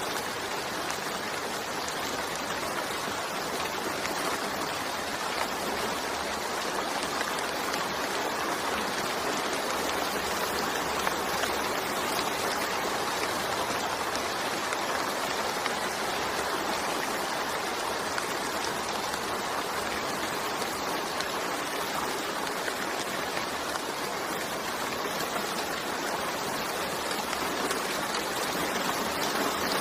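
Steady rainfall, an even hiss of falling drops that holds at the same level without a break.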